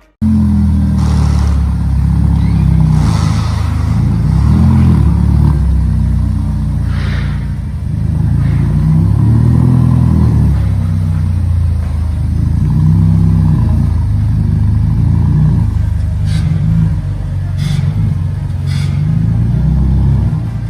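Ferrari Roma's V8 engine running on the move, its pitch rising and falling again and again as it revs up and eases off. It cuts in suddenly just after the start.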